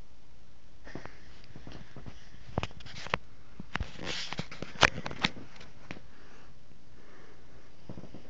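Handling noise from the recording phone as it is moved over the bedding: rustling of fabric with a quick run of sharp clicks and taps, the loudest about five seconds in.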